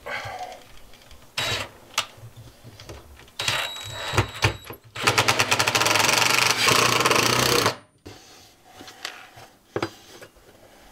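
Cordless impact driver driving screws to fix a metal toilet-mounting bracket to a wooden floor. It gives a few short spurts, then a run of rapid, even hammering for two to three seconds that stops sharply.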